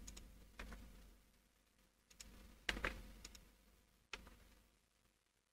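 A few faint, scattered clicks from a computer keyboard and mouse, the loudest nearly three seconds in, over a low steady hum.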